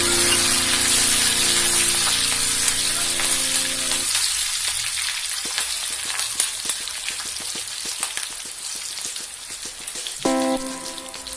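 Hot oil sizzling and crackling as a tempering of curry leaves, dried red chillies and cumin fries in the pan, with sharp pops through the middle. Background music plays over it at the start and again near the end.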